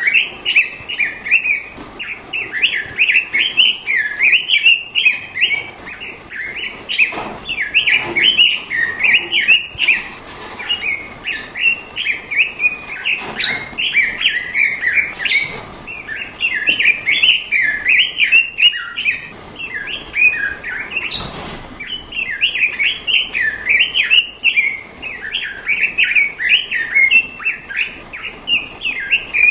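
Straw-headed bulbul (cucak rawa) singing: rapid, warbling chirps in quick succession with only short pauses. A single sharp click comes about two-thirds of the way through.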